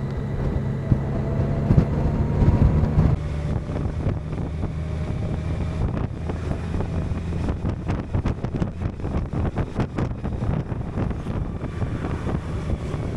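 Honda Gold Wing's flat-six engine running at riding speed, with wind rushing over the microphone. Wind buffeting comes as rapid flutters in the second half.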